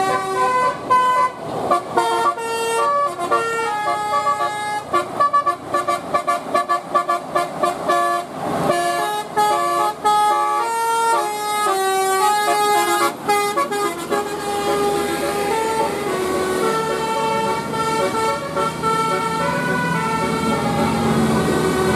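Bus telolet horn, a Basuri multi-tone air horn, playing a melody: quick short notes for roughly the first 14 seconds, then slower, longer held notes.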